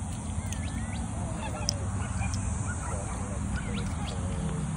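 Distant birds calling: scattered short calls that slide up and down in pitch, over a steady low rumble.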